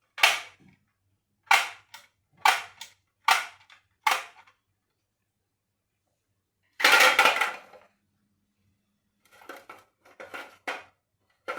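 A series of sharp clacks, about one a second, then a longer, louder clatter about seven seconds in, followed by fainter rapid clicks near the end.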